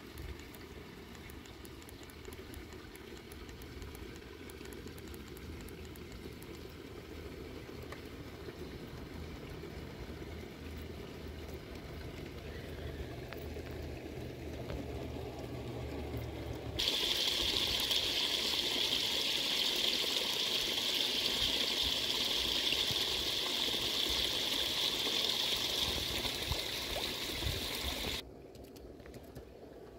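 Low, steady rumble of a G-scale model train running along garden track. About seventeen seconds in, a loud steady hiss cuts in over it, and it cuts off abruptly about eleven seconds later.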